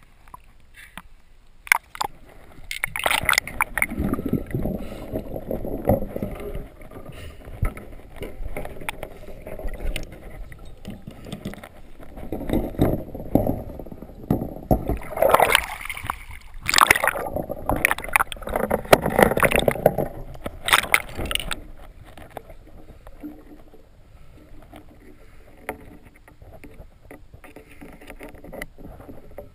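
Water sloshing and gurgling against a camera on a pole spear as it moves at and just under the surface, in loud irregular surges, then settling to a quieter, muffled underwater wash for the last several seconds.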